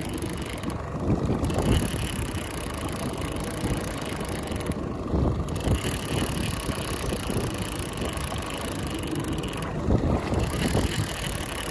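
Steady noise of wind on the microphone and water around a small drifting fishing boat, with a few louder swells.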